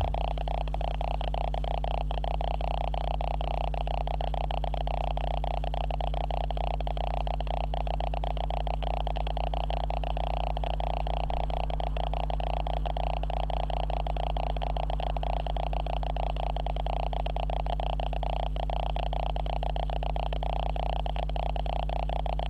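Steady electrical buzz and hum from the camera's own recording circuitry, with a fast fine crackle running through it. The noise is a camera fault that drowns the room sound.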